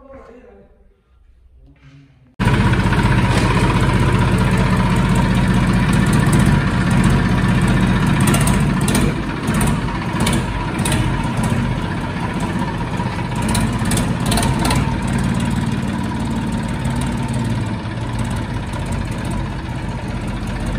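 A vehicle's engine running steadily, cutting in suddenly about two seconds in.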